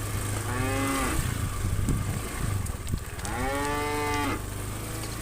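Cow mooing twice, a shorter call about half a second in and a longer, drawn-out moo about three seconds in, over a steady low hum.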